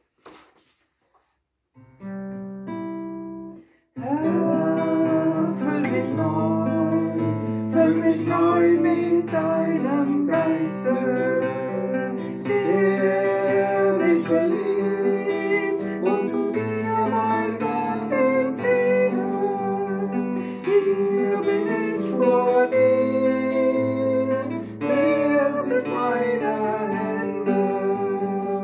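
Acoustic guitar sounds a short chord about two seconds in, then from about four seconds in plays chord accompaniment while a woman sings a hymn.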